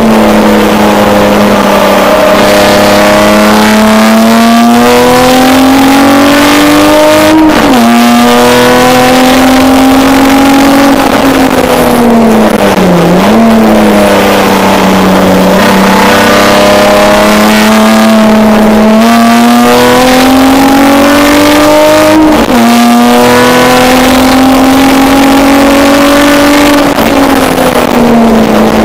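Race car engine, loud from inside the bare, roll-caged cabin, pulling under load with its pitch climbing slowly. It drops sharply at two upshifts, about seven and a half and twenty-two seconds in, and dips and recovers briefly around thirteen seconds.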